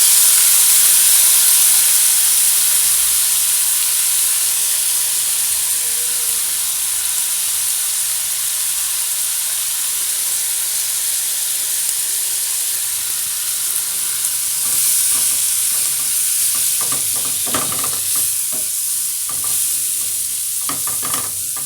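Onions, spices and light soy sauce frying in hot oil in a pot with a steady sizzle, loudest at first and easing slowly. Near the end, a spoon scrapes and knocks through the mix as it is stirred.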